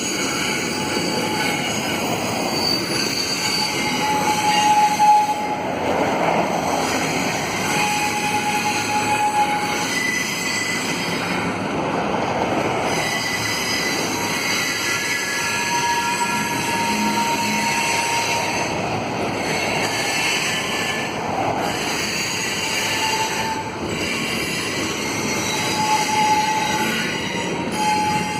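Double-stack container train rolling around a curve, wheels squealing against the rails. High-pitched squeals come and go every few seconds over the steady rumble of the cars, caused by the wheels straining on the curved track.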